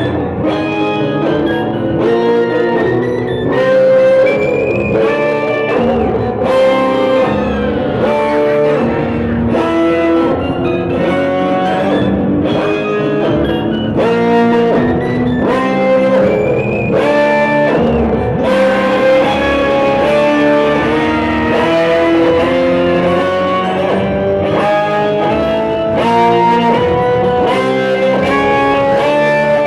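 Electric guitar played live through an amplifier: an instrumental blues passage of single-note lines, with the notes climbing gradually through the second half.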